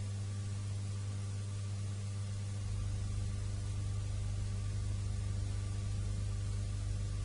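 Steady low electrical hum with hiss, the background noise of a silent-film transfer with no soundtrack. A deeper low rumble joins the hum about two and a half seconds in.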